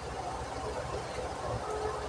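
Steady low rumble of a gas stove burner heating a pot of fish tinola on the boil.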